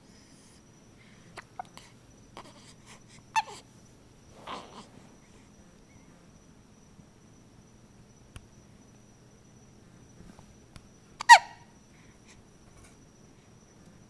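One-week-old newborn baby hiccuping: two sharp, short hiccups with a quick falling squeak, about three seconds in and again, louder, about eleven seconds in, with soft breathing between.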